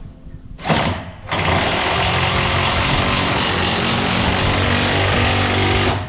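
Power tool run in a short burst, then held on for about five seconds before it cuts off suddenly.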